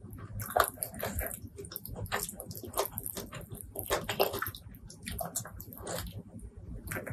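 Close-miked wet eating sounds: fingers working a sauce-coated fried chicken wing and rice, then biting and chewing with lip smacks, as many short sticky clicks.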